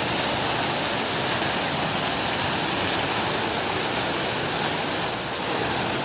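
Mall fountain with a ring of foaming aerated jets and a tall central jet, water splashing steadily into the basin in an even rushing hiss.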